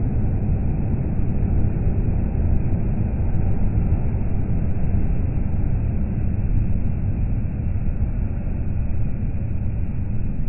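Deep, steady rumble of a Volvo FH articulated lorry and motorway traffic passing close by, with no distinct engine note standing out.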